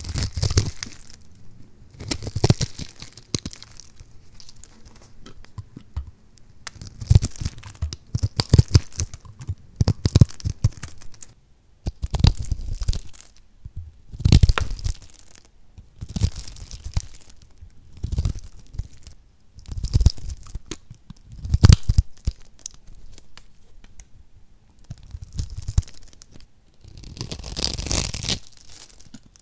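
A flat blade cutting through a grid-scored bar of soap, the small cubes and thin slices snapping off with crisp crackles. The cutting comes in repeated strokes with short pauses between.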